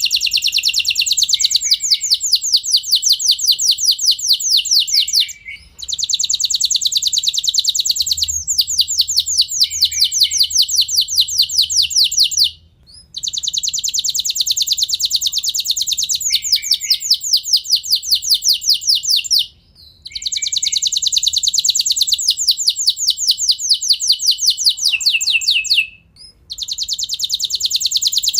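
Canary singing long rolling trills: rapid, evenly repeated high notes in phrases of about six to seven seconds, each broken off by a brief pause about four times.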